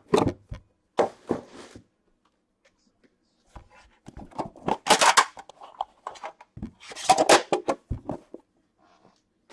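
Metal card tin of 2018-19 Upper Deck The Cup hockey being handled and opened: clicks and rustling early on, then two bursts of scraping and rustling about five and seven seconds in.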